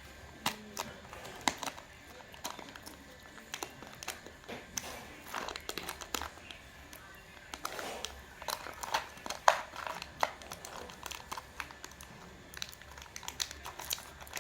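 Candy egg wrappers crinkling and tearing as Kinder Joy eggs are unwrapped, in irregular sharp crackles, with the loudest about nine and a half seconds in.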